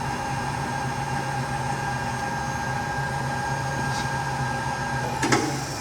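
Hardinge HLV-H-EM precision lathe running under power with its in-feed engaged, a steady mechanical whine and hum. Near the end there is a single sharp clunk, and the higher part of the whine then fades.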